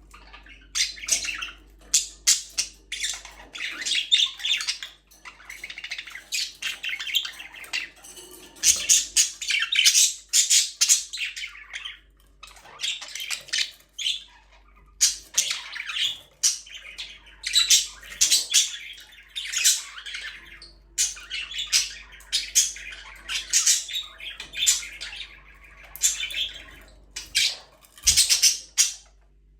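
Budgerigars chirping in short, rapid, irregular calls that follow one another almost without a break.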